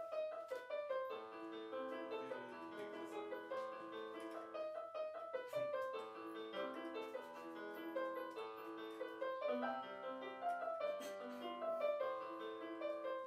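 Portable electronic keyboard played in a piano voice: a busy running melody of short notes over chords.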